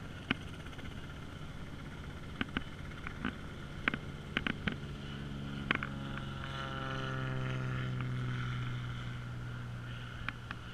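Several sharp clicks and knocks, then an engine swells and fades as it passes by, its pitch dropping slightly as it goes.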